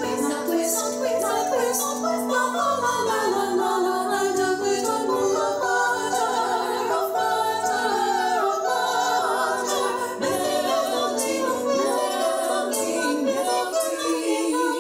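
Choir singing a cappella, several voices in harmony.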